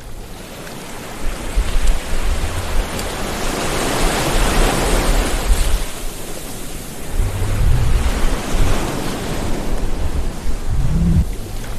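Sea waves breaking and washing on the shore in a continuous surf wash that swells about halfway through, with low rumbles underneath.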